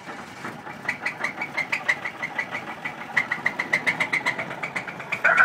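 1983 Buick Regal's 231 cubic-inch V6 running with a sharp, regular knock, about five knocks a second. The engine is worn out and due to be replaced.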